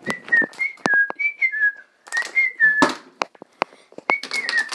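A person whistling a short tune in stepped, gliding notes, in three phrases with brief gaps, over scattered knocks and clicks from handling, the loudest about three seconds in.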